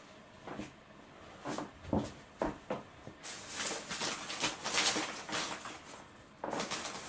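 Rustling and light knocks of things being handled, with a longer stretch of rustling in the middle, as of a packet or container being opened.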